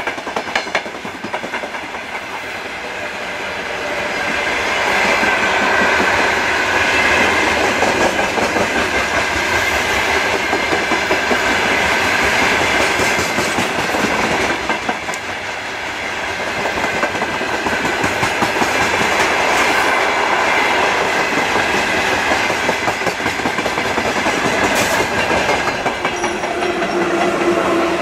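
Freight wagons of a long train rolling past close by, their wheels clattering steadily over the rail joints with a continuous rumble. Near the end a steady hum joins in as the VL8 electric locomotive pushing at the rear comes past.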